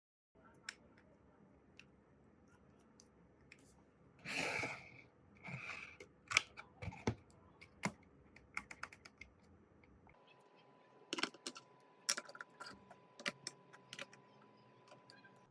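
Faint, irregular clicks and taps of small hard objects being handled, with two short scraping rustles about four and six seconds in. After about ten seconds a faint steady tone runs under a further flurry of clicks.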